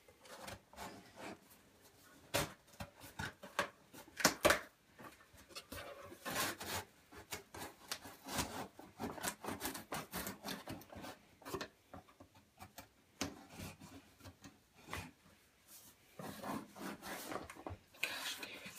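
Small knife scraping and cutting along the packing tape of a cardboard box in short, irregular strokes, with the cardboard rubbing and flexing under the hands.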